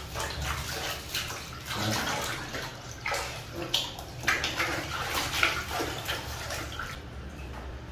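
Water splashing and sloshing in a plastic basin as Labrador puppies are washed by hand and paddle about, in uneven splashes.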